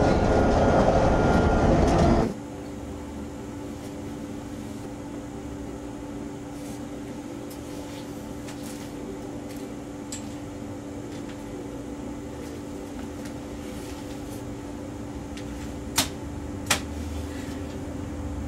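Loud ride noise inside a moving vehicle that cuts off abruptly about two seconds in, leaving quiet room tone with a steady low hum. Two sharp clicks sound near the end.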